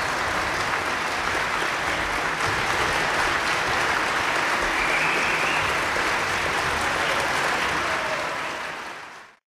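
Concert audience applauding steadily, fading away near the end.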